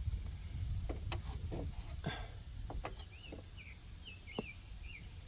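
A small bird chirping a quick run of short notes in the second half, over a few scattered light clicks and knocks of hand tools and a low steady rumble.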